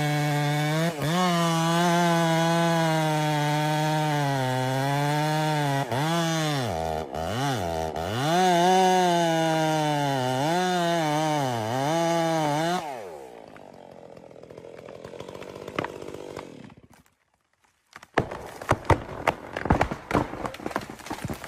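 Chainsaw cutting at full throttle, its pitch dipping several times as the chain bogs under load in the wood, then dropping away about thirteen seconds in. Near the end, a run of sharp cracks and knocks.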